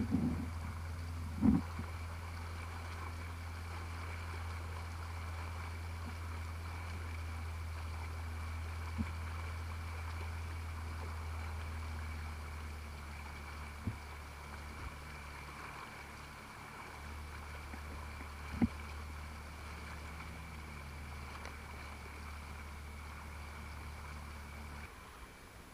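Jet ski (personal watercraft) engine running steadily at speed, a low drone heard muffled, with water spray hissing and a few sharp knocks. The drone dips briefly past the middle and falls away near the end.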